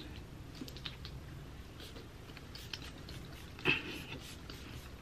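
Faint rustling and scattered light clicks of hands handling long hair, with one brief louder rustle a little past three and a half seconds in.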